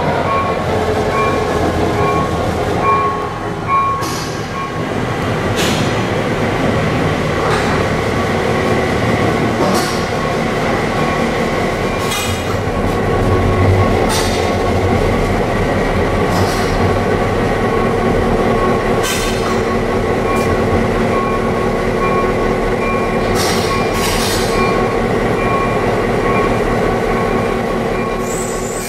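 An EMD SW900 switcher's eight-cylinder 567 diesel engine runs steadily while the locomotive moves on the shop tracks. Sharp clicks and knocks from the wheels and rails come now and then.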